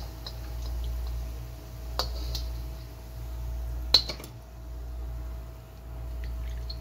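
A slotted metal spatula clinks against the pot and wok while fried gulab jamun are moved into sugar syrup: two sharp clinks about two seconds apart, the second louder, over a steady low hum.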